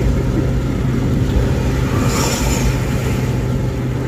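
Intercity bus's diesel engine and exhaust running at highway speed, a steady low drone under road and wind noise, with a brief hiss about two seconds in.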